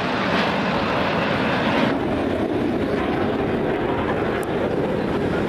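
Steady rushing noise of Aermacchi MB-339 jets flying an aerobatic display. About two seconds in it turns abruptly duller and lower.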